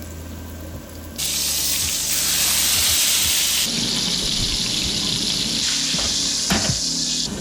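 Loud sizzling of food frying in a hot pan, starting suddenly about a second in and holding steadily.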